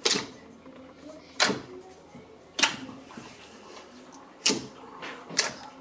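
Glittery clear and blue slime being kneaded and folded by hand in a glass dish, giving five sharp squelching pops about a second apart.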